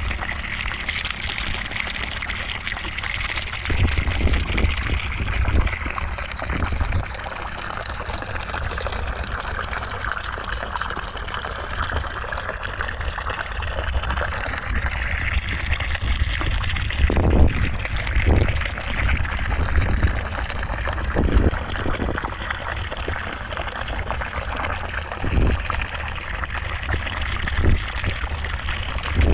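Steady rushing white noise for sleep, with a few brief low thumps.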